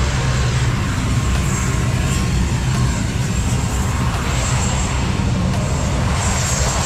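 Engine of a weight-shift ultralight trike running steadily on the ground.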